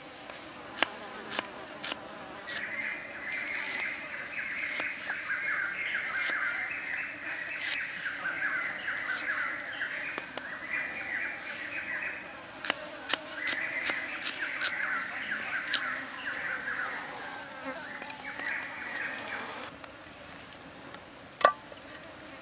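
A kitchen knife slicing shallots and garlic on a wooden chopping board, with sharp knife knocks at irregular intervals. Behind it a steady high buzz of insects comes in about two and a half seconds in and stops a few seconds before the end.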